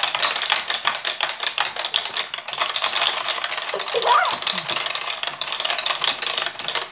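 Fast, continuous plastic clicking and rattling from the buttons of a Hydro Strike tabletop water game being pressed over and over by two players to fire water at a ping pong ball. A short vocal sound about four seconds in.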